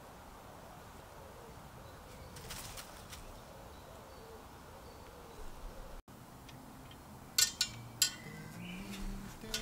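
Quiet woodland ambience with a faint bird call. After about six seconds it cuts to a couple of sharp crackles from a small campfire, and soft guitar music begins near the end.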